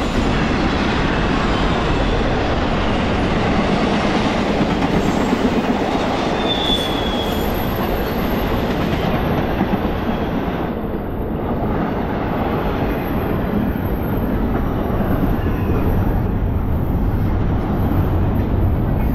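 Double-stack intermodal freight train's well cars rolling past at speed: a steady rumble of steel wheels on the rails, with a brief high-pitched wheel squeal about seven seconds in.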